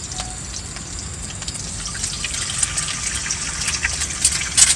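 Egg frying in hot oil in a small wok over a portable gas stove: a steady sizzle that grows louder from about two seconds in, with spitting crackles near the end.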